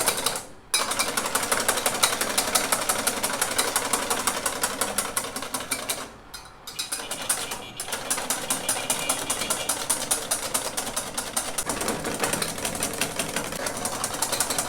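A hand whisk rapidly beating egg whites and sugar in a bowl, a fast, even clatter of strokes against the bowl, pausing briefly twice. The whites are being whipped up by hand, which is hard work.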